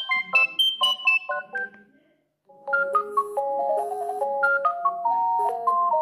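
Alcatel OneTouch 320 mobile phone playing its ringtones through its small speaker: one melody of short quick notes ends about two seconds in, and after a brief pause the next ringtone starts, a slower tune with held notes.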